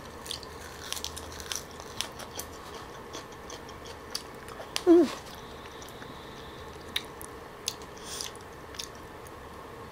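Close-miked mouth sounds of a person eating raw fish and lettuce: scattered soft, wet chewing clicks and smacks. A short vocal sound falls in pitch about five seconds in.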